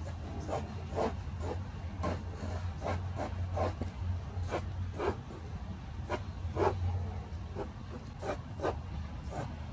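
Graphite pencil scratching on paper in short, quick shading strokes, irregular at a little under two a second, over a steady low hum.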